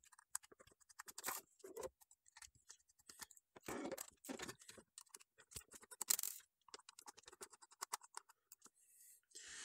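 Faint, irregular clicking and scratching of a small screwdriver working the screws out of a laptop hard drive's metal mounting shroud, with light handling of the drive and bracket.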